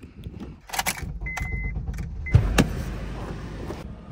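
A car door shutting with a heavy thud, just after a short electronic beep and a few clicks.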